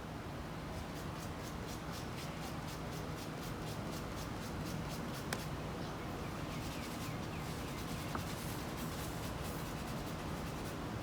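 Quick, repeated scratchy rubbing strokes on wood, a few a second, by hand over a low steady hum, with two sharp clicks about halfway through and later.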